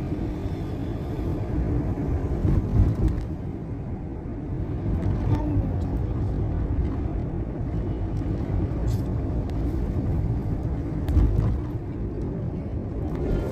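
Steady low rumble of road traffic, with brief louder swells about three seconds in and again about eleven seconds in.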